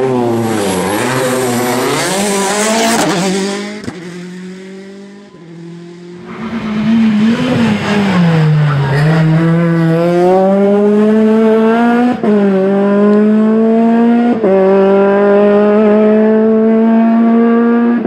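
Rally cars driven hard on a tarmac stage: an engine drops in pitch on braking into a hairpin, then revs climbing steadily under full throttle, the pitch dropping sharply at each upshift about twelve and fourteen seconds in. A quieter lull falls between about four and six seconds.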